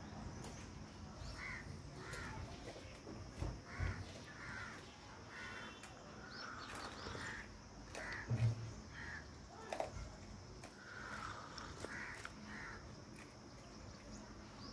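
Faint crow caws repeating, with a few soft knocks around the middle.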